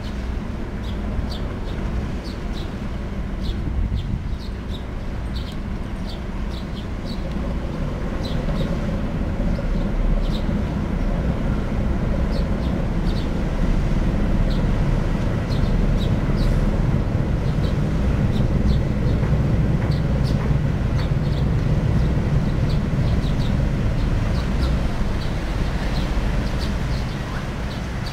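Car ferry Ishitegawa's diesel engines and propellers running astern as she backs into her berth: a steady low drone that grows louder about eight seconds in as the propeller wash churns, and eases off near the end.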